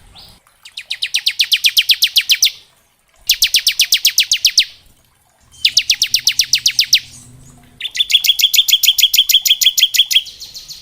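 Bar-winged prinia (ciblek) singing its 'ngebren' song: four rapid, machine-gun-like trills of about ten sharp high notes a second, each lasting one to two and a half seconds with brief pauses between. The last and longest trill has a steadier, more ringing tone.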